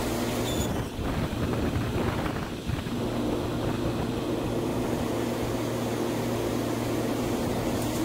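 Steady roar of a glassblowing hot shop: the gas-fired glory hole's burner and the blowers running together, with a constant low hum under a rushing noise.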